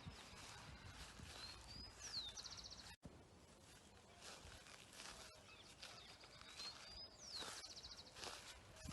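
Faint rustling and crunching of footsteps brushing through dry bushes. A songbird sings the same short phrase twice: a few rising notes, a downward swoop, then a fast trill. The sound cuts out for an instant about three seconds in.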